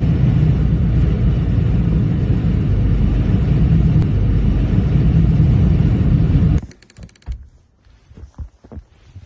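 Strong wind buffeting the microphone in a snowstorm: a loud, low rumbling blast that cuts off about six and a half seconds in, followed by faint scattered soft knocks.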